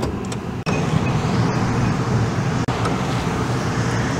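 Steady low rumble of road traffic in the open air, with a couple of light clicks near the start as a car's hood release lever is pulled.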